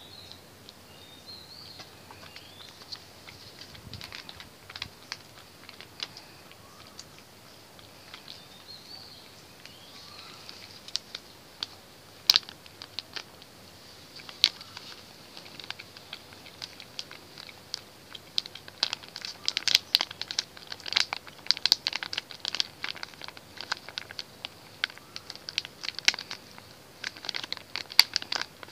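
Domestic cat eating wet cat food in gravy: a run of wet clicking chewing and lapping sounds, sparse at first and dense over the second half. Faint bird chirps near the start.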